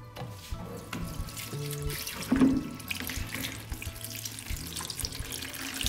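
Tannat red wine siphoned from an oak barrel, running from a hose through a mesh filter bag into a plastic bucket and splashing steadily.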